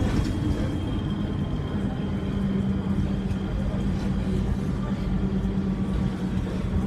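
Alexander Dennis Enviro300 bus's diesel engine running under way, a steady high turbo whistle riding over its rumble. A steady low drone joins about two seconds in.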